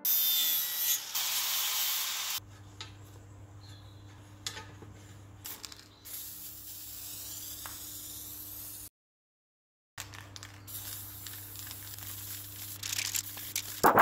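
A cut-together run of metal-prepping noises. First, about two seconds of loud abrasive power-tool scouring on steel angle iron. Then aerosol spray paint hissing over a steady low electric hum, a brief cut to silence, and a pressure washer jet hissing against steel and ground.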